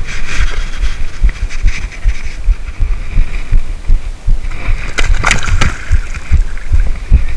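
Low, irregular thumping of wind and handling on a body-worn camera's microphone. A short splash comes about five seconds in as a large common carp is released back into the water.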